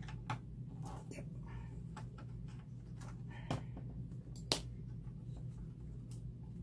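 Scattered small clicks and taps of a thin metal tool prying and poking at plastic parts and connectors inside an opened Acer Aspire V5-571 laptop, the sharpest click about four and a half seconds in, over a steady low hum.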